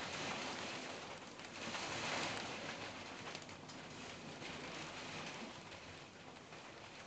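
Thunderstorm rain and gusting wind, a dense steady noise that swells in a gust about two seconds in and then eases.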